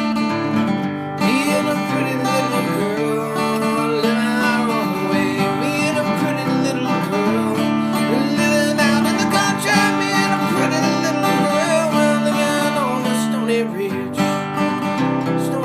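Background music: acoustic guitar strummed in a steady accompaniment, with a melody line over it.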